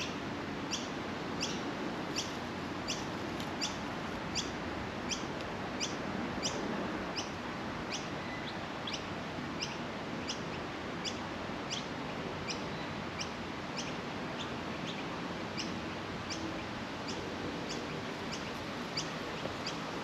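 A small bird repeating a short, high, falling chirp with clockwork regularity, about three every two seconds, over a steady low hum of background noise.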